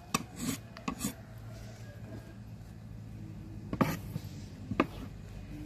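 Sharp plastic clicks and knocks from handling a small electric food chopper's clear plastic bowl and lid: a cluster in the first second, then two more knocks about a second apart near the end.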